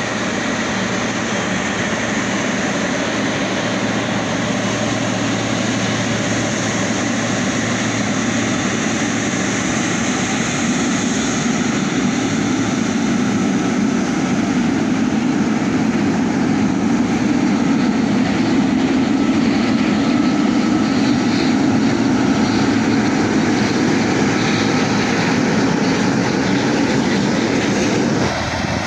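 Boeing 777 jet airliner taxiing past, its twin jet engines running with a steady rush and a faint high whine.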